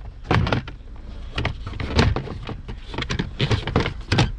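Hard plastic glove box trim panel of a Chevrolet Impala being refitted under the dash: an irregular run of knocks, taps and rattles of plastic against plastic as it is pushed back into place.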